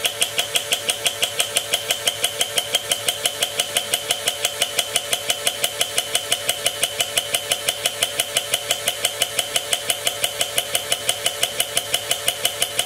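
Small electric motor turning an OS Max R2104 nitro engine over in an oil bath, running steadily with an even beat about five times a second. This is an oil-bath break-in, with the motor working the piston through the pinch of a new engine.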